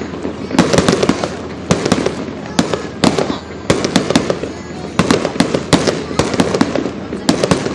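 Aerial fireworks going off: rapid bangs and crackles coming in clusters about once a second.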